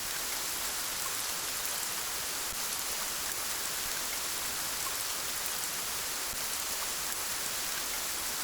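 Steady rain: an even hiss with faint scattered drop ticks that swells in and then holds level once the music ends.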